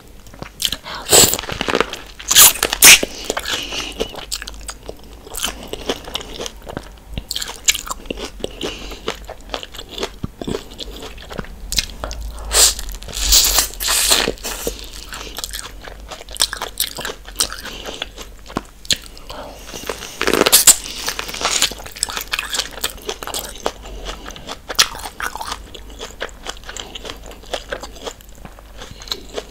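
Corn on the cob being bitten and chewed close to the microphone: irregular crunches as kernels are bitten off the cob, with chewing between, the loudest bites a few seconds in and again around the middle.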